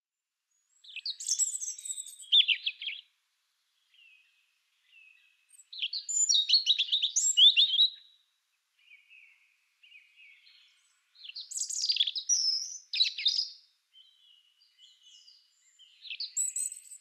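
A songbird singing in four short phrases of rapid, high-pitched chirps and trills, a few seconds apart, with faint soft calls between them against an otherwise dead-silent background.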